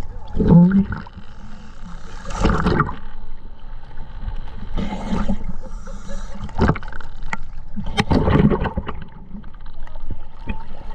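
Scuba diver breathing underwater through a regulator: bursts of exhaled bubbles gurgle and rumble every few seconds, with hissing inhalations and small clicks between them.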